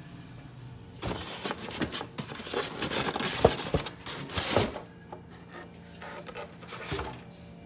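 Styrofoam packing insert and cardboard box rubbing and scraping as juicer parts are lifted out. There is a dense stretch of scraping for about four seconds, starting about a second in, then quieter handling.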